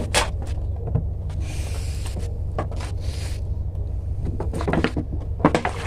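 A plastic bonsai pot set down on a wooden turntable with a knock, followed by scattered clicks and rustles of handling over a steady low hum.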